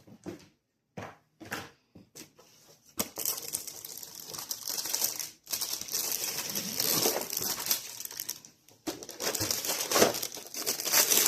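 Plastic component bags being handled and crinkled. A few light clicks and taps come first, then about three seconds in a steady run of crinkling that swells and pauses twice.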